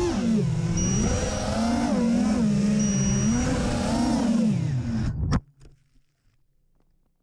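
FPV racing quadcopter's brushless motors (DYS 2205 2300kv on 5-inch three-blade props) whining, pitch rising and falling as the throttle changes. The sound cuts off suddenly with a click about five seconds in.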